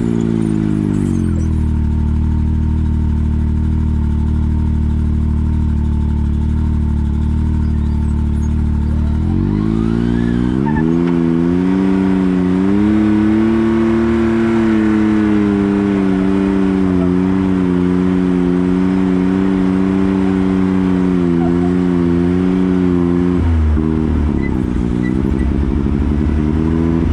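Off-road vehicle's engine running under way. It holds a low, steady speed, revs up about ten seconds in and stays at higher revs, then drops back and wavers near the end.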